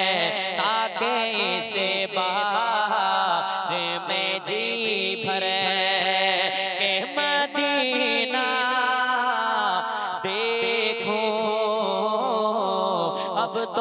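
A young man's solo voice singing a naat into a handheld microphone, in long, wavering runs of melody that do not break for words.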